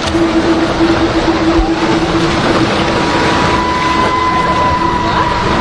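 Steady engine drone with a constant hum. The low hum fades out about halfway through, and a higher steady whine comes in and rises slightly.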